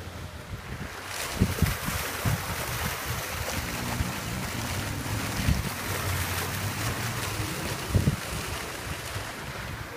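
Wind rushing and buffeting on a phone microphone, swelling about a second in, with several low thumps from gusts. A low hum sits underneath around the middle.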